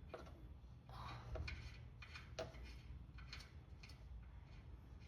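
Faint, irregular metal clicks and clinks of a wrench tightening the oil drain plug back in after draining.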